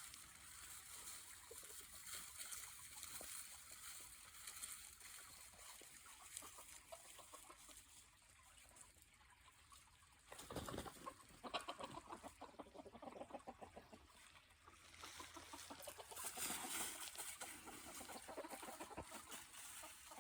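Chickens clucking softly, with a louder flurry of clucks about halfway through.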